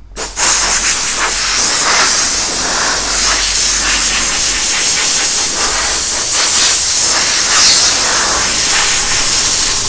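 Compressed air hissing steadily from an air blow gun, blowing sanding dust off a headlight lens after 800-grit sanding.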